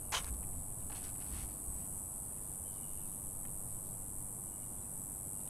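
Steady high-pitched chorus of insects, with a sharp click just after the start and a couple of fainter clicks about a second in.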